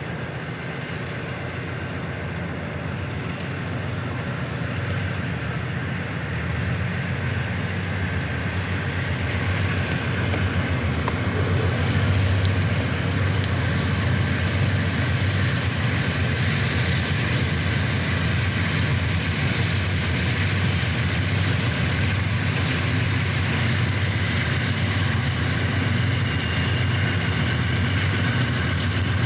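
CSX diesel freight locomotives running as they haul a container train past, a steady low drone that grows louder over the first ten seconds or so and then holds steady.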